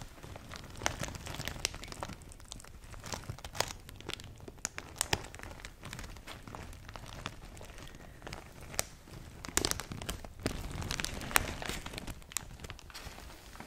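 Rustling and crinkling of a large bouquet of red roses and palm fronds being handled and moved about, with irregular sharp crackles.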